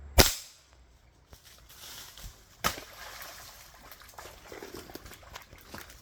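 A sudden sharp crack just after the start, then a second, smaller crack about two and a half seconds later, with faint scattered rustling and clicks between.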